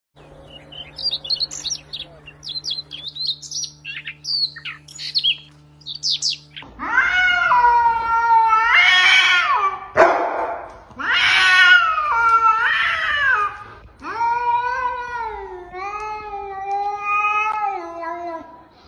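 Quick high bird chirps over a steady low hum for the first few seconds, then a domestic cat's long, wavering yowls, one after another and loud, with a brief noisy burst about ten seconds in.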